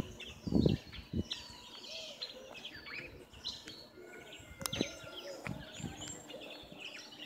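Small birds chirping and twittering, many short calls overlapping throughout. A low thump comes about half a second in, and a single sharp click a little past the middle.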